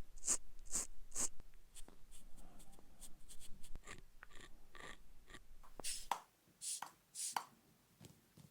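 Close-miked makeup ASMR handling sounds: short, crisp scratchy strokes, about two a second at first, then scattered light taps and clicks, and three longer strokes near the end.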